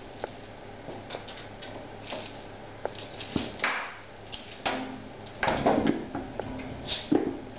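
Irregular thumps, knocks and paw scuffs from a kitten jumping at a bungee toy and landing on the floor, the toy bumping against a wooden door. The busiest and loudest spell of bumps comes a little past the middle.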